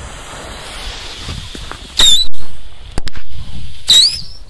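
Fuses of two small single fireworks hissing, then the fireworks going off with a loud short shrieking whistle about two seconds in and a second shorter one near the end, with sharp cracks in between.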